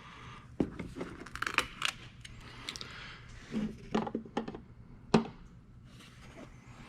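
Handling noises: a string of light clicks, knocks and scrapes, with the sharpest knock about five seconds in.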